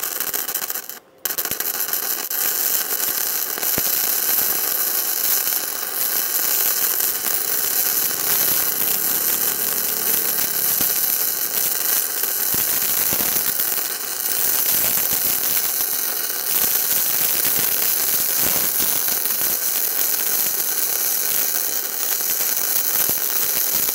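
Gasless flux-cored MIG welding arc (E71T-GS wire, torch on the negative terminal) crackling steadily as a thick bead is run on 15 mm steel plate. The arc breaks off briefly about a second in, then restarts and runs on.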